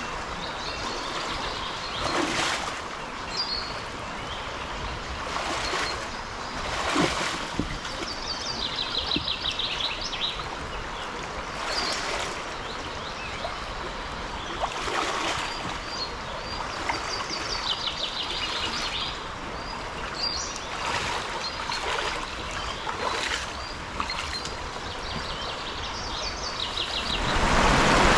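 A river flowing steadily, with small birds singing short trills over it. Near the end, louder rushing water from shallow rapids sets in.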